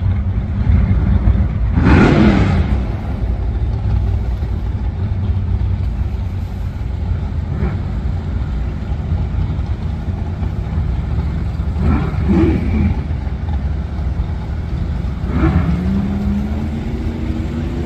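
Drag-racing muscle car engines running loud at the starting line, with short revs about two seconds in, around twelve seconds and near fifteen seconds; the last one carries on as a note rising steadily in pitch.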